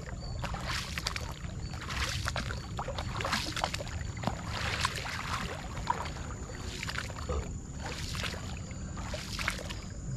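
A coracle being paddled through calm river water: the paddle swishes and dips with soft, irregular splashes and drips about every second.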